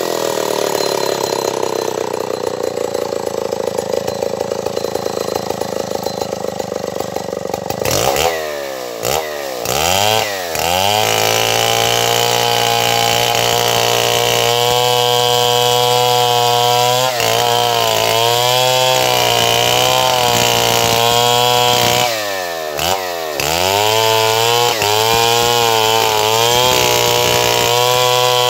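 Stihl 070 two-stroke chainsaw running steadily at high speed, its engine pitch swooping down and back up in a few quick dips about a third of the way in and again about three quarters of the way in.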